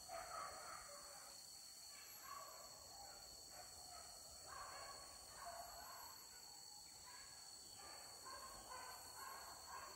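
Hunting dogs barking and baying faintly during a chase, short calls repeating through the whole stretch, over a steady high hiss.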